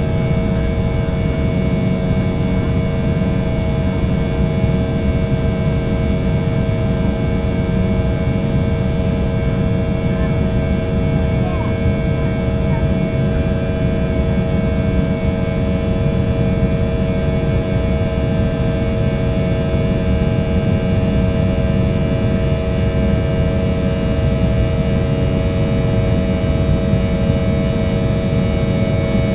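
Cabin noise of an Airbus A319 in flight: a steady engine drone heard from inside the cabin. It is a dense low rumble with several steady hum tones above it, unchanging throughout.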